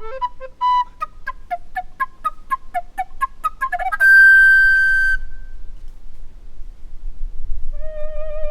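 Recorder playing a quick run of short, detached notes, then a loud held high note about four seconds in that stops after about a second. After a short gap, a new note with a wavering vibrato starts near the end.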